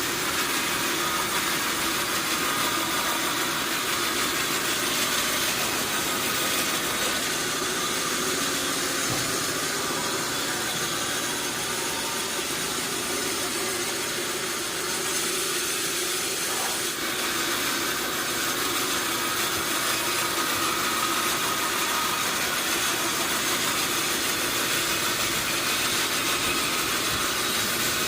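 Sawmill machinery running with a steady mechanical noise that holds an even level throughout.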